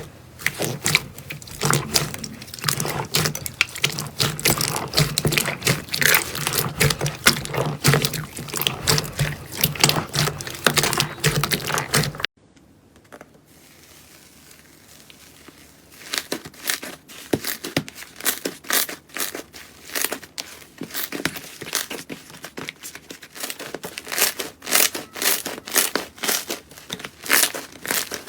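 Slime being worked, making dense crackling clicks and pops. About twelve seconds in the sound cuts off abruptly; after a quieter stretch, sparser, sharper clicks follow.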